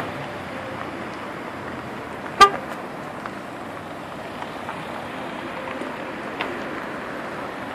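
Cars driving slowly past one after another, a steady noise of engines and rolling tyres, with one short, loud car-horn toot about two and a half seconds in.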